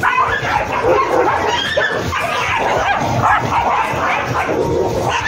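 Several dogs barking and yipping over one another without a break as they chase and tussle together.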